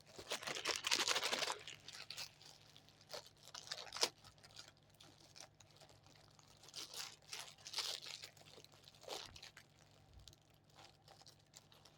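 Ceiling fan remote control kit's cardboard box and packaging being opened and handled by hand. A rustling, crunching stretch in the first second and a half is followed by scattered clicks and crinkles.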